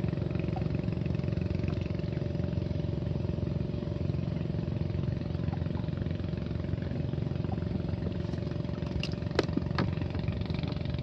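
A small boat engine running steadily, with a few sharp clicks near the end.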